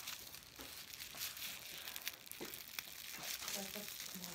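Faint crinkling and rustling of packaging being handled and unwrapped by hand, with a few soft clicks.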